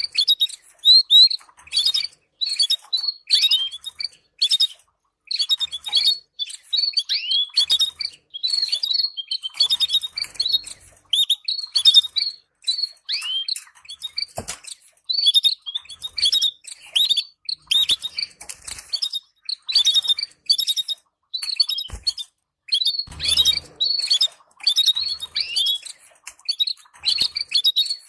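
Canaries chattering: a fast, continuous run of short high chirps and downward-sweeping twitters, broken by brief pauses. This is the kind of chatter played to stimulate breeding pairs.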